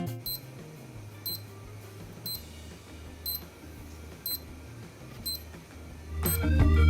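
Digital pill organizer's alarm beeping: short, high electronic beeps about once a second, the reminder that it is time to take a dose.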